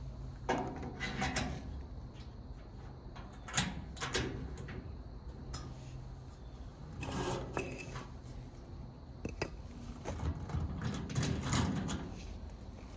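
Small parts being handled and fitted: a plastic lawnmower wheel, a bushing and washers going onto a gas grill's axle pin, with a few sharp clicks and knocks among quieter rustling.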